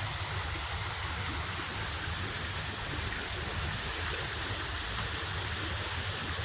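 Steady rushing of water from a small creek waterfall.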